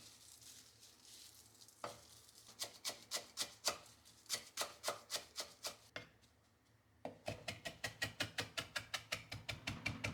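Kitchen knife chopping on a cutting board in two rhythmic runs: about four strokes a second, a short pause, then a faster run of about six strokes a second.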